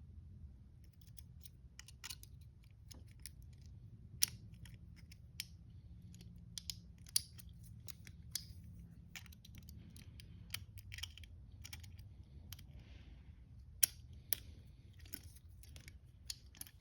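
Small metallic clicks and scrapes, irregular, of a lock pick working in the keyhole of ASP Century handcuffs to release the double lock, with a few sharper clicks standing out.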